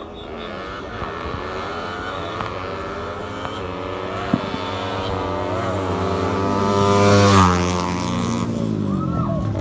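A drag-racing vehicle's engine at full throttle, revs climbing steadily as it closes in and passes close by about seven seconds in, its pitch then dropping as it pulls away.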